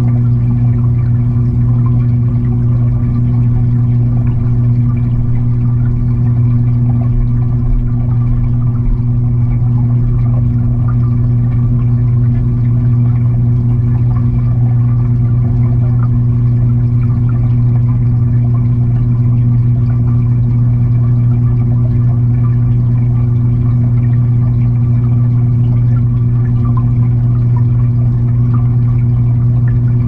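Aquarium filter pump humming steadily, heard underwater inside the fish tank, with a faint irregular crackle of water over the hum.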